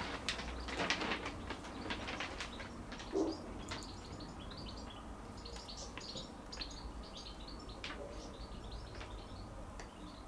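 Small clicks and scrapes of hand work on thin wires while they are being stripped, with many short high chirps scattered through the middle.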